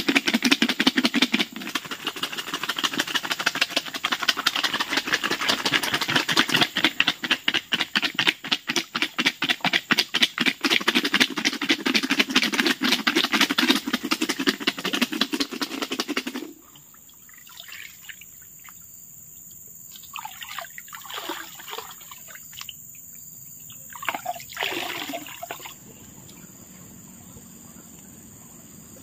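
River snail shells (langkitang) clattering against each other as they are scrubbed clean, a fast rattling that stops abruptly about sixteen seconds in. After that a steady high insect drone remains, with a few short falling calls near the twenty- and twenty-four-second marks.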